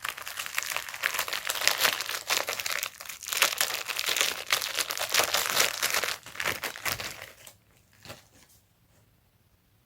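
Packaging wrapping crinkling loudly and continuously as it is handled and unwrapped from a newly bought pull-up bar. It stops about seven and a half seconds in, with a couple of faint rustles after.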